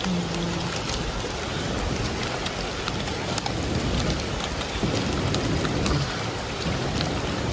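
Freshwater crabs frying in hot oil in a pot, a steady sizzle broken by many small pops and crackles. The cook wonders whether the popping is the crabs' eggs bursting.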